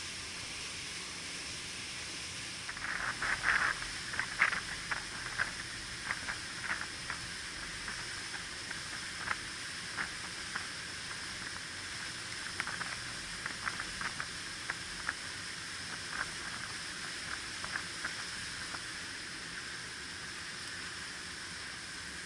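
Steady hiss with scattered light clicks and taps, thickest a few seconds in and thinning out later, as a spinning rod and reel are worked from a kayak.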